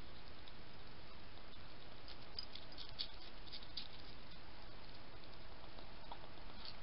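European hedgehog eating from a dish: quick, crisp chewing clicks and crunches, thickest a couple of seconds in, over a steady hiss.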